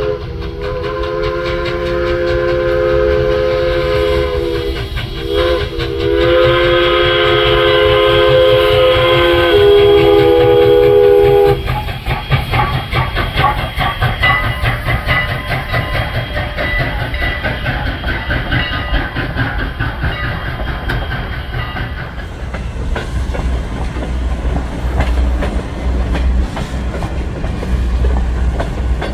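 Steam locomotive No. 89's Pennsylvania Railroad three-chime whistle blowing two long blasts, the second longer, then the locomotive and its train rolling past with steady wheel clicks over the rail joints and a low rumble.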